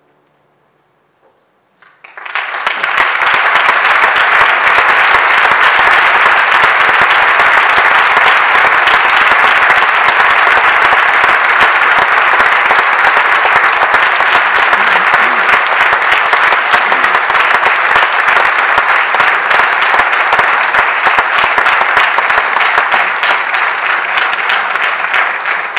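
The faint tail of the orchestra's final chord dies away. About two seconds in, a concert audience breaks into loud, dense applause that keeps up steadily.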